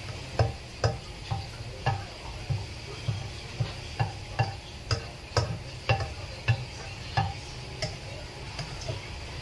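A spatula scraping and tapping against a non-stick frying pan about twice a second as chopped garlic is stir-fried in oil, with a faint sizzle underneath. The strokes grow weaker and more spaced out near the end.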